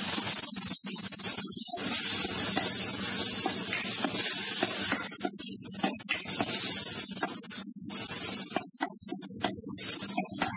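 Spiced masala sizzling and hissing hard in a hot stainless steel kadai after a splash of water, with a steel ladle now and then scraping and stirring through it.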